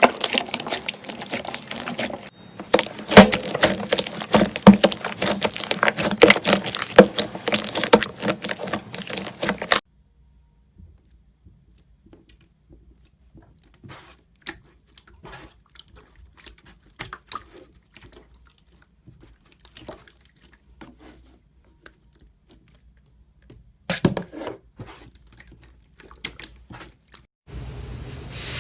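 Slime being squished and pressed by hand, giving dense sticky crackling and popping for about ten seconds. It then drops to sparse, faint clicks, with a short louder cluster of pops near the end.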